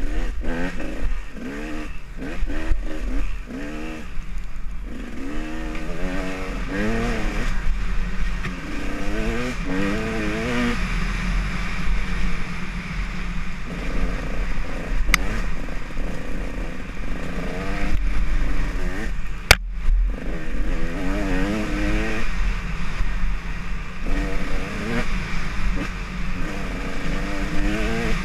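Dirt bike engine revving up and falling back over and over as it is ridden hard along a bumpy trail. A couple of sharp knocks come about halfway through.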